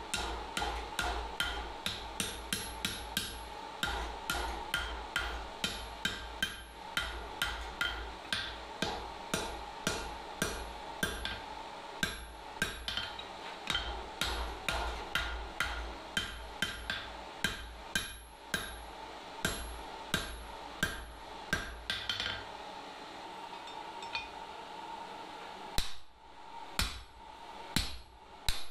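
Hand hammer striking hot steel on an anvil in steady forging blows, about three a second, while stock for a fireplace shovel handle is drawn out. The blows stop about 22 seconds in, and a few separate heavier strikes come near the end.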